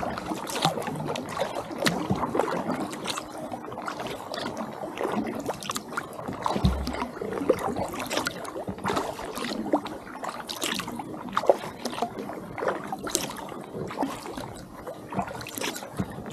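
Kayak paddle strokes: the double-bladed paddle dipping into calm lake water, with irregular splashes and drips running off the blades beside the hull.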